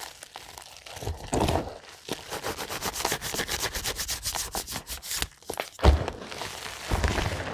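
Fingertips pressing and rubbing through crumbled dyed gym chalk powder: a dense run of fine, gritty crackles with a few heavier, duller presses into the powder.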